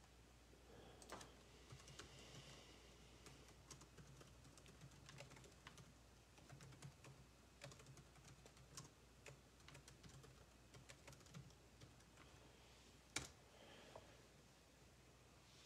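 Faint typing on a computer keyboard: irregular key clicks with short pauses, and one louder keystroke near the end.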